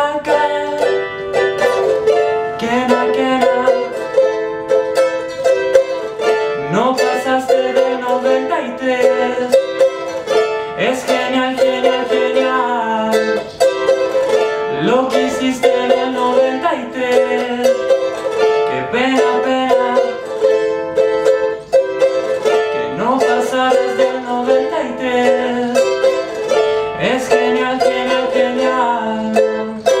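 Ukulele played solo: a picked, strummed melody built on a phrase that repeats about every four seconds, each pass opening with a rising slide.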